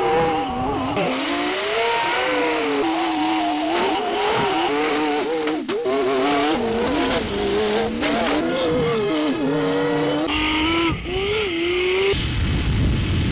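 Vehicle noise with a loud, wavering whine that keeps sliding up and down in pitch, like squealing tyres or a revving engine. A deeper rumble comes in about a second before the end.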